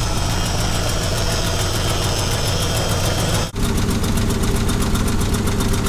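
1965 Dodge D500's 318 poly V8 idling steadily, with a brief break about three and a half seconds in.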